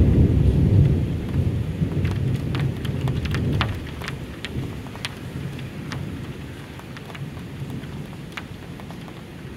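Thunder rumbling, loudest in the first second and dying away over about four seconds, over steady rain with scattered drops ticking sharply on the window glass.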